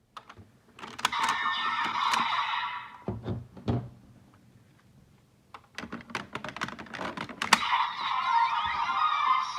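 Plastic clicks and snaps of a Kamen Rider Raise Buckle toy being fitted and worked in its belt, with two stretches of the toy's electronic sound effects from its small speaker, about a second in and again near the end.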